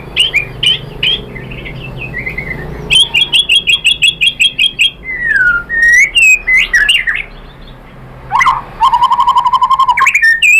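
White-rumped shama singing a varied song of quick chirped notes, with a fast run of repeated notes about three seconds in, a falling whistle, and a rapid repeated series of lower notes near the end.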